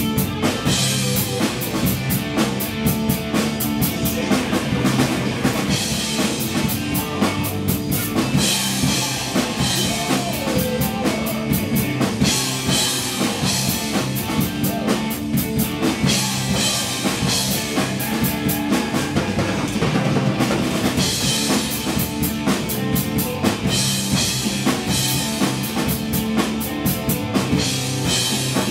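Rock drum kit played along with a recorded rock song: bass drum, snare and cymbals in a steady groove over the song's bass and guitar. Stretches of heavy crash and ride cymbal wash come and go every few seconds.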